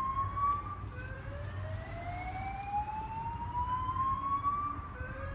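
Fire alarm sounding a slow rising whoop tone. Each tone sweeps steadily upward for about four seconds, then drops back and starts again: one sweep ends about a second in, and the next begins near the end.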